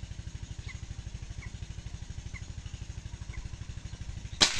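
An engine runs steadily in the background with a fast, even pulse, and faint short chirps come about once a second. About four seconds in comes the single sharp crack of a Cometa 400 air rifle shot at a dove.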